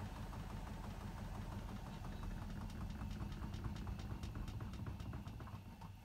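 Hotpoint WMFUG 942 washing machine tumbling its drum during the wash, a steady motor hum with a rapid ticking about five times a second. The drum stops turning just before the end.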